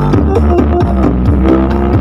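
Very loud, bass-heavy dance music with a steady beat, blasted through a big 'sound horeg' speaker rig during a sound check.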